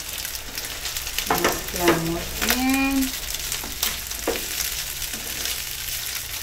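Leftover cooked rice sizzling as it fries in ghee in a nonstick pan, with a spatula stirring and scraping it in short strokes. A brief pitched sound about two seconds in.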